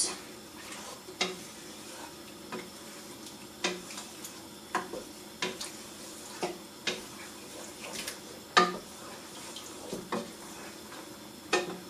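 Wooden spoon stirring a thick stew in a saucepan, knocking against the pot about once a second, with one louder knock about two-thirds of the way through.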